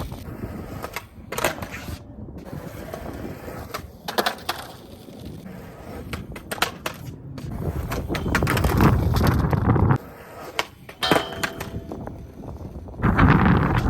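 Skateboard wheels rolling, with several sharp clacks of the board. The rolling grows louder about eight seconds in and cuts off suddenly near ten seconds, followed by a few more clacks.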